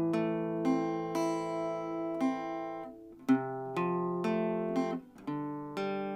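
Enya Nova Go SP1 carbon-fibre acoustic guitar playing a slow chord progression. Each chord is struck and left to ring, and a new one comes in about every second.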